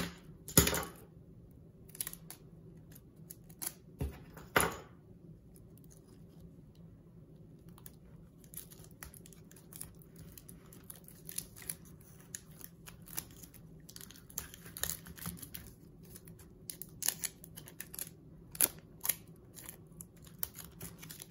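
Clear adhesive tape and plastic drinking straws being handled and taped together by hand: two sharp crackles within the first five seconds, then a run of small crinkling clicks as the tape is pressed and wrapped around the straws.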